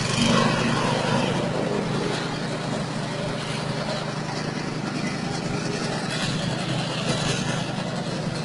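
Engine-driven straw chopper running while rice straw is fed into its hopper: the 6.5 hp engine drones steadily under the rushing noise of the straw being chopped.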